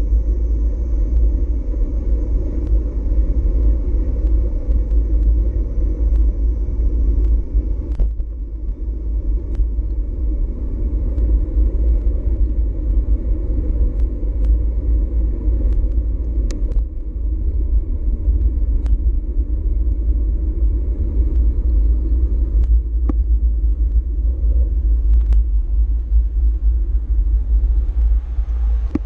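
Steady low rumble of a bicycle ride, the tyres rolling on the trail and wind on the action camera's microphone, with a few sharp clicks scattered through.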